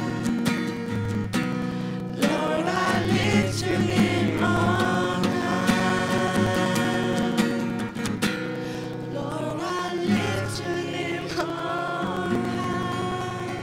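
Young women singing a Christian worship song, one leading on a microphone, over instrumental accompaniment with held chords.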